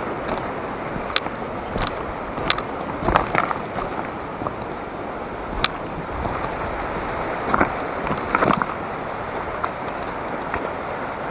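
Steady rush of a shallow mountain river running over stones, with a few scattered small clicks and knocks on top.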